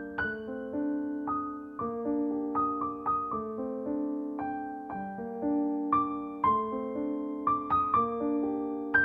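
Background piano music: a slow, gentle piece of struck notes and chords left to ring and fade.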